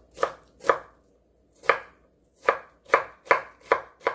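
Kitchen knife julienning a cucumber on a wooden cutting board: about eight separate chops as the blade strikes the board, at an uneven pace with a short pause about a second in.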